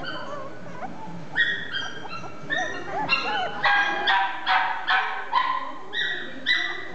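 A small dog yapping: high, sharp yaps with a little whining in the first half, then a steady run of about two to three yaps a second from about halfway through.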